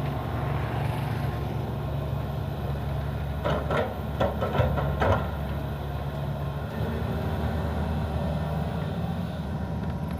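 Excavator's diesel engine running steadily, with a quick run of about five knocks a few seconds in.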